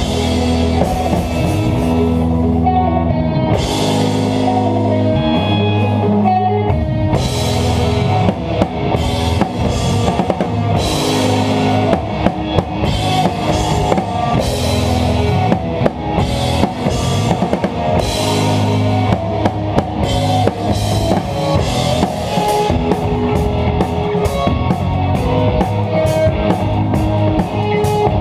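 Live rock band with a drum kit played hard, cymbals crashing over kick and toms, with sustained bass and guitar notes underneath. In the last several seconds the drummer plays a fast run of evenly spaced strikes.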